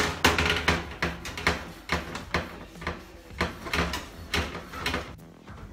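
Wire oven rack being scrubbed with a soapy sponge in quick back-and-forth strokes, about two to three a second; the scrubbing stops near the end.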